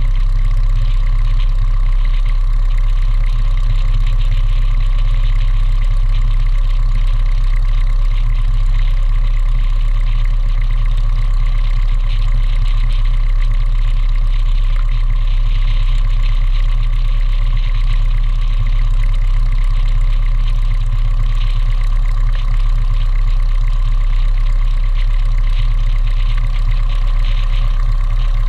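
High-wing light aircraft's engine idling steadily while the plane stands still: a loud, even low hum that does not change.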